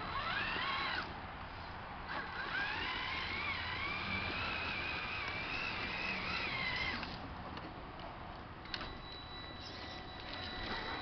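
Electric motor and gear whine of a Traxxas Summit RC monster truck under throttle, its pitch rising and wavering with speed. There is a short rising burst at the start, then a longer wavering run of about five seconds that stops around seven seconds in.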